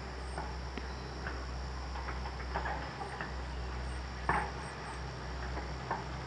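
Irregular clanks and knocks of scrap metal being handled, the loudest about four seconds in, over a steady low rumble.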